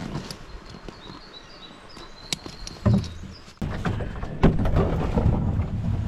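Faint high chirping over a quiet background, then, after a sudden jump in level a little past halfway, a run of knocks and thuds over a low rumble as a canoe and gear are handled at a rocky portage landing.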